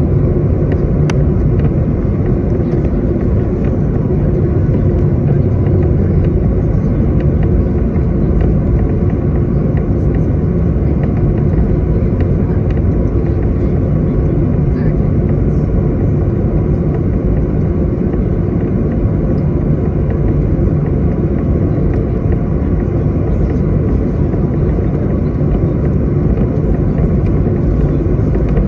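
Steady rumble inside the cabin of a jet airliner taxiing on the ground, its engines at low taxi power.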